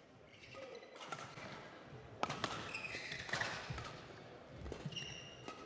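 Badminton rally: rackets striking the shuttlecock with sharp smacks a second or so apart, the loudest about two seconds in, and players' court shoes squeaking on the floor.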